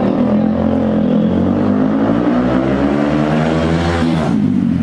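TVS Apache RTR 160 4V's single-cylinder engine running through an aftermarket thick-barrel slip-on exhaust as the motorcycle approaches, its note rising slightly. It passes close by about four seconds in with a sharp drop in pitch.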